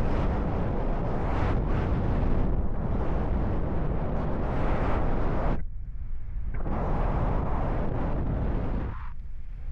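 Wind buffeting the microphone in paraglider flight: a rushing, rumbling noise that swells in gusts, drops out briefly about halfway through and eases near the end.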